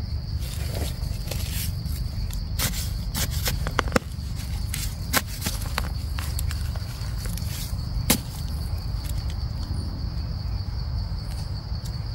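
Footsteps crunching through dry forest leaf litter, with scattered sharp snaps, over a steady high-pitched drone of insects.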